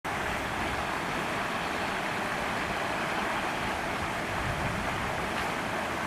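A steady, even rushing noise with no distinct events.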